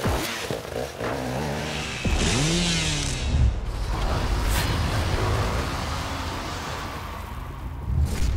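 A dirt bike engine revs briefly, then title-sequence sound effects take over. About two seconds in comes a whoosh with an engine-like rev that rises and falls, then a sustained low rumble, and a hit near the end.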